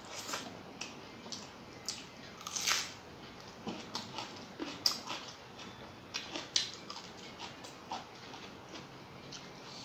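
Close-up mouth sounds of eating rice and curry by hand: chewing with wet lip smacks and clicks coming at irregular intervals, one longer, louder smack a little under three seconds in.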